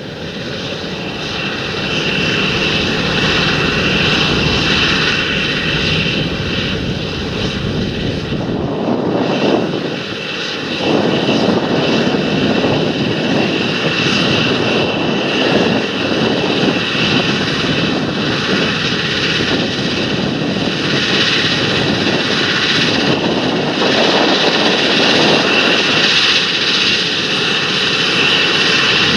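Large John Deere tractor's diesel engine running steadily under load while working the field, with a brief dip about ten seconds in.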